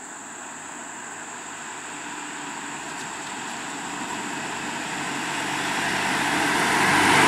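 Nissan Atlas light truck approaching and passing close by, its engine and tyres growing steadily louder to a peak as it comes alongside.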